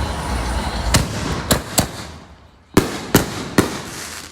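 Consumer fireworks going off: a rushing hiss that fades away, with six sharp bangs in two quick groups of three, each followed by a brief echo.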